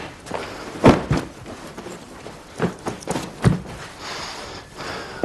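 Footsteps on a hard floor and irregular thumps as a bag on a table is handled and packed, with rustling of cloth or bag material near the end.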